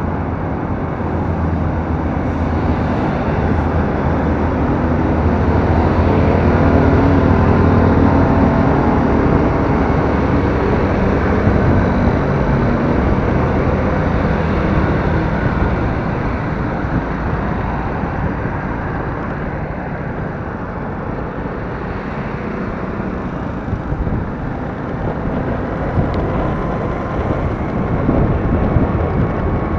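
Engine and road noise of a moving vehicle in city traffic: a steady low engine hum over tyre and wind rush, strongest in the first ten seconds.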